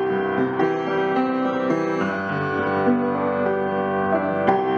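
Background music led by piano, a slow, gentle melody of held notes.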